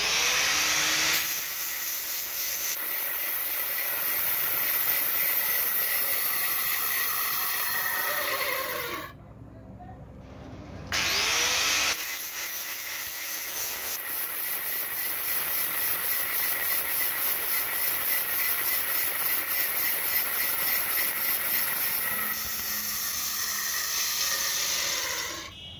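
Angle grinder running with a small ball held against its wheel, grinding the oversized ball down to fit the drill spindle. It winds down about nine seconds in, starts up again about two seconds later and runs on, winding down again near the end.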